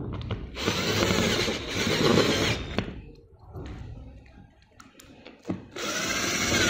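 Cordless drill/driver spinning bolts into a metal mounting bracket on the chair seat, in two runs: the first about two seconds long, the second starting near the end.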